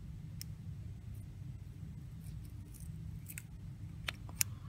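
Needle-nose pliers picking at an HP 32SII calculator's keyboard contact area to peel up the old pressure foam: a few small, sharp metallic ticks and light scrapes, clearer in the second half, over a steady low hum.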